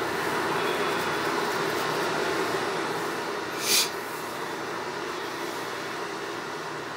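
Steady rushing noise of an ocean-waves sound machine, with one short, sharp hiss a little past the middle.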